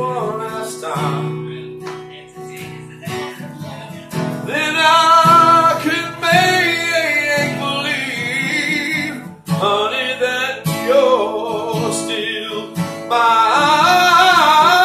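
Acoustic guitar strummed while a man sings; the voice comes in strongly about four seconds in with long, wavering held notes, loudest near the end.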